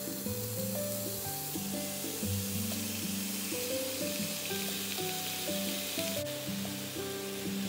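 Raw chicken pieces sizzling as they hit hot oil in a nonstick pot, a steady frying hiss, with background music playing over it.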